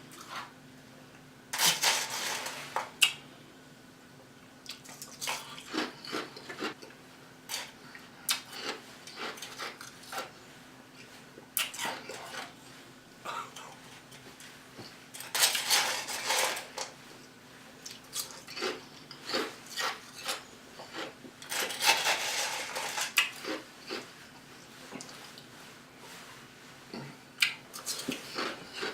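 Crushed ice being chewed close to the microphone: irregular sharp crunches and crackles, with three longer, louder spells of dense crunching, about two seconds in, midway and past two-thirds of the way.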